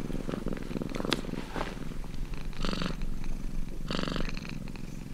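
Domestic cat purring: a steady, fast-pulsing low rumble that swells louder twice, about halfway through and again a second later.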